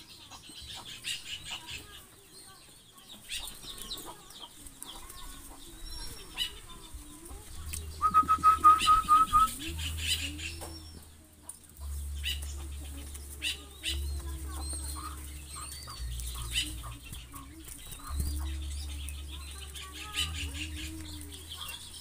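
Zebra dove chicks flapping their wings and scrabbling as they jostle each other to peck seed from a hand-held feed ball, with fluttering and bird calls throughout. A loud quick run of about seven short notes comes around eight seconds in.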